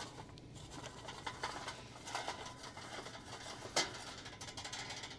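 Hot charcoal briquettes poured from a chimney starter onto unlit charcoal in a basket: scattered light clinks and crackling, with a few sharper knocks, the loudest about four seconds in.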